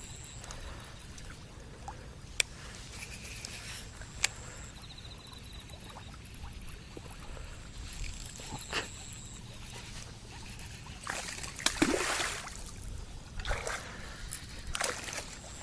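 Light water sloshing and splashing with a few sharp clicks, two of them loud, in the first few seconds, and several short noisy surges in the last few seconds.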